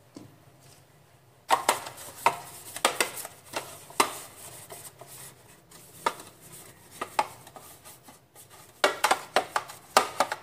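Pastry brush scraping and knocking against the inside of a metal loaf tin as it is greased with cooking oil. Irregular sharp scrapes and taps start about a second and a half in, with a quick flurry near the end.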